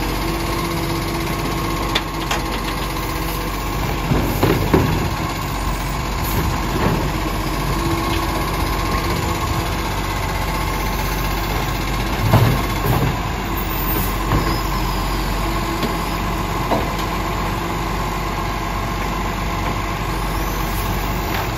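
Side-loading garbage truck idling steadily while its automated arm grabs, lifts and tips wheelie bins into the hopper, with a few clunks, the loudest about twelve seconds in.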